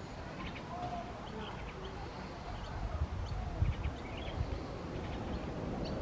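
Farmyard chickens clucking among the scattered chirps and short calls of various small birds, over a steady low rumble.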